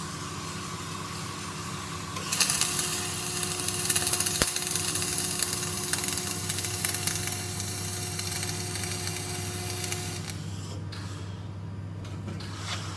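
Flux-core arc welding: the arc strikes about two seconds in, crackles and hisses evenly for about eight seconds, then cuts off. A steady low hum runs underneath.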